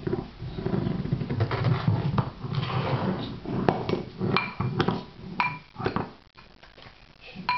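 Ceramic bowls being knocked together, tipped and rocked on a hard floor by a baby's hands: a string of clinks and clacks, some with a short ringing, with scraping between them.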